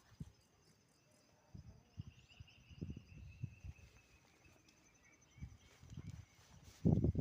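Small cicada buzzing as a thin, steady, high-pitched tone, joined by a second, lower buzz for a few seconds in the middle. Irregular low thumps and rumbles run underneath, the loudest near the end.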